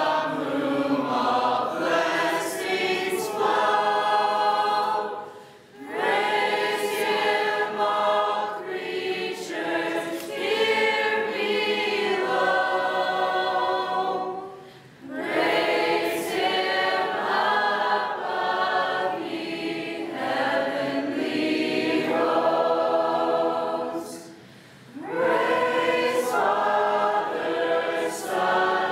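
A mixed group of young men and women singing together unaccompanied, with three short breaks between phrases.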